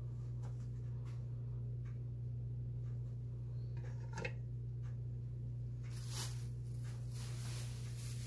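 A steady low hum, with faint taps and a short rustle about six seconds in as chilli peppers are handled and lifted off the plastic plate of a digital kitchen scale.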